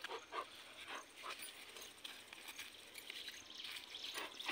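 A dog whining faintly, a few short whines spread through the moment.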